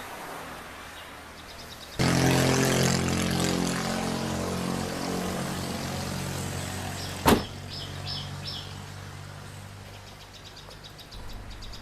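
Car engine running steadily, growing suddenly louder about two seconds in and then easing off. A single sharp clunk comes about seven seconds in.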